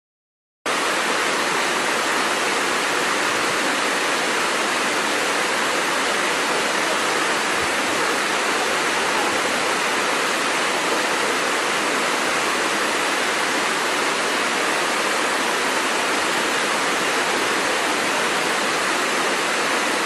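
Steady rushing of a waterfall, loud and unchanging, starting abruptly just under a second in.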